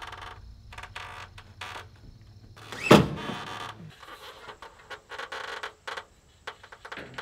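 Sheet-metal trim being handled and fitted, with a string of short creaks and scrapes and one sharp, loud bang about three seconds in.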